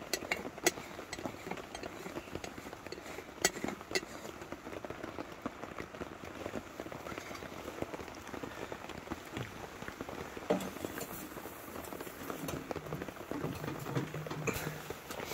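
Steady rain falling on a tent, an even hiss with a few sharper clicks of heavier drops scattered through it.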